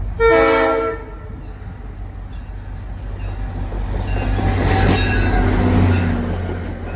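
Short blast of a GP40P diesel locomotive's multi-chime Leslie air horn, then the low rumble of its EMD diesel engine and the wheel noise of the train passing at speed, loudest about five seconds in.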